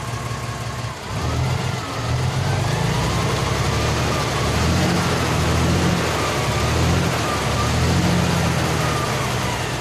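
Vehicle engine heard at its exhaust pipe, idling and then revved up and down several times from about a second in, dropping back to idle near the end.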